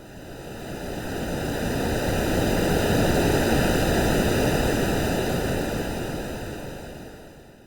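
A single ocean-wave sound, likely AI-made: a rush of surf noise that swells up, peaks about halfway through and then fades away.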